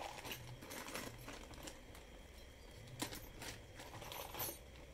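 Small steel bolts, screws and nuts clinking and rattling against each other as they are tipped out of a plastic bag onto a cloth-covered table. The clinking comes in two spells, the first at the start and the second from about three seconds in, with a sharp clink near the end.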